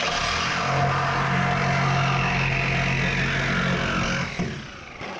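Power tool cutting through the sheet steel of a car door. It starts abruptly, runs steadily for about four seconds with a low hum under a harsh hiss, then dies away.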